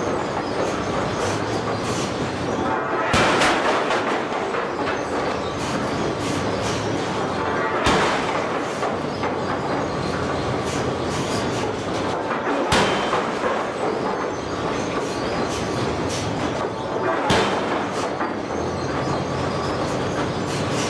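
Air hammer hot-forging a red-hot carbon-steel flange blank: four single heavy blows, about one every four and a half seconds, over the hammer's steady loud running noise.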